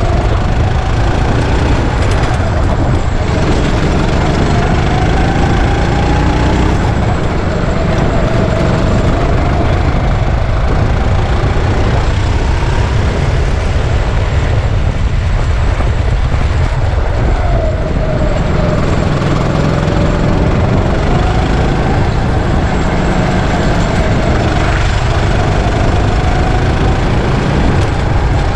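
Go-kart engine at speed: its note climbs for several seconds and then drops back, over and over, under a loud steady low rumble.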